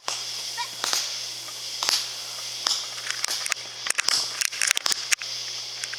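Irregular sharp clicks and rustles over a steady low hum and hiss, like a microphone being handled.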